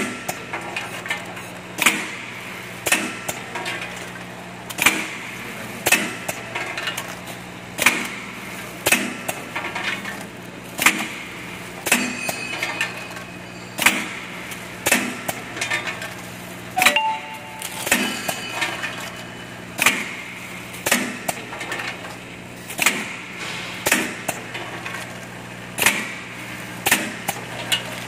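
Automatic vertical pouch-packing machine running and cycling through bags: sharp metallic clacks of its mechanism about once a second over a steady motor hum.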